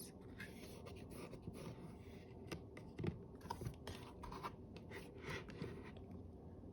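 Faint rustling of paper and small scattered clicks: the pages of a picture book being turned and handled.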